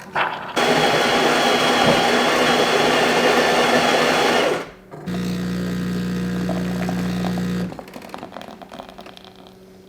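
Jura E8 super-automatic espresso machine working through a flat white: its grinder running steadily for about four seconds, then after a short pause its pump buzzing for about two and a half seconds.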